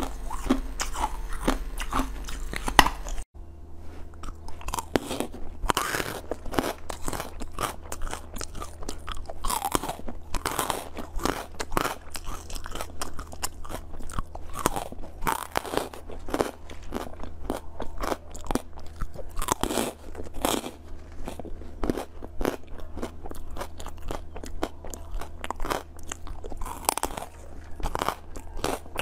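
Close-miked eating: biting into firm jelly for the first few seconds, then, after a cut about three seconds in, repeated biting and chewing of small candy pieces with many sharp, irregular crunches.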